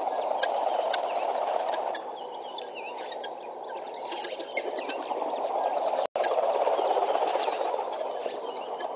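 A flock of guineafowl chattering in a dense, continuous clamour, louder in the first two seconds and again from about six seconds on, with short high chirps of small birds over it. The sound cuts out for an instant just after six seconds.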